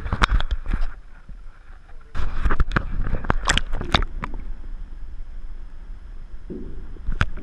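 Water splashing and sloshing against a GoPro camera as it is plunged into lake water with a bass being released. It comes in two bursts about two seconds apart, then gives way to a muffled low underwater rumble.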